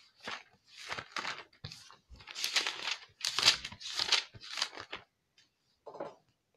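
Pages of a Bible being leafed through, a quick run of short paper rustles with a last one about six seconds in, as a passage is searched for.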